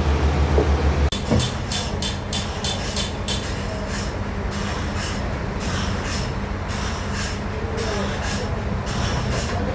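Sawmill bandsaw machinery running with a steady hum and hiss. About a second in the sound changes abruptly to a different steady machine hum.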